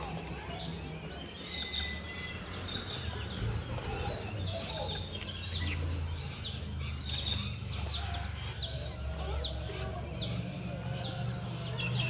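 Small birds chirping, short high calls scattered throughout, with one bird repeating a short call about every half second in the second half, over a steady low rumble.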